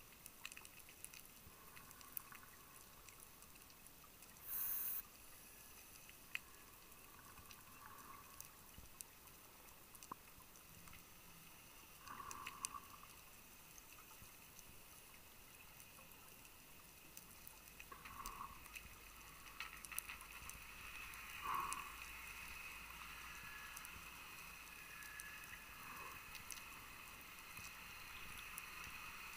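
Faint, muffled underwater sound on a scuba dive. Scattered clicks and crackles of reef life run throughout, with a few short hissing and bubbling bursts from a diver breathing through a scuba regulator. One hiss comes about five seconds in, and shorter bubbling bursts come every few seconds in the second half.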